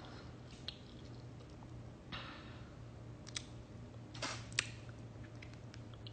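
Faint scattered clicks and taps with a couple of brief rustles, from small handling at a table, over a low steady hum.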